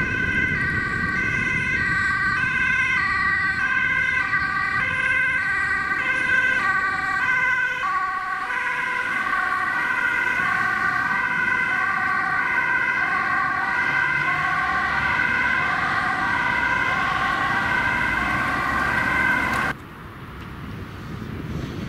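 Dutch ambulance's two-tone siren alternating high and low about once a second. It cuts off suddenly near the end, leaving vehicle and traffic noise.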